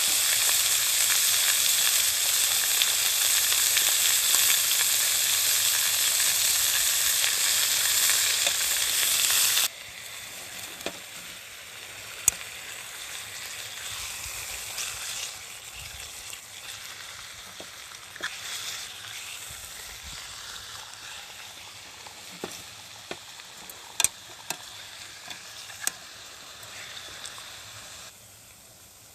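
Food frying in a hot pan, a loud steady sizzle that drops off sharply about ten seconds in to a much quieter sizzle, with occasional sharp pops and clicks of spattering fat or a utensil.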